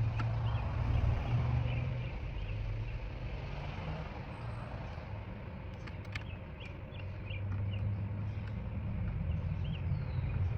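Outdoor background of a steady low rumble with small birds chirping in short, repeated notes, and a couple of light clicks about six seconds in.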